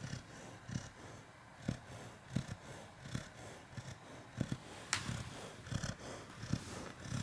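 A sleeping dog snoring with a low rattle much like a cat's purr, in quick regular pulses about one every three-quarters of a second. There is a single sharp click about five seconds in.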